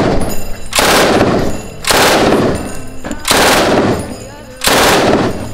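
IWI Negev 5.56 mm belt-fed light machine gun firing short fully automatic bursts. The tail of one burst is heard at the start, then four more bursts, each about half a second to a second long, come roughly a second apart.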